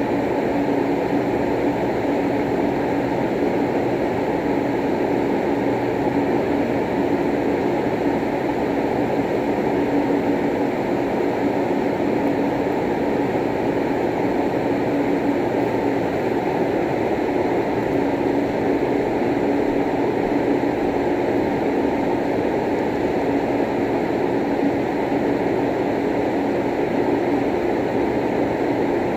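Steady loud room noise, a constant low rumble with a faint hum in it and no distinct ball strikes.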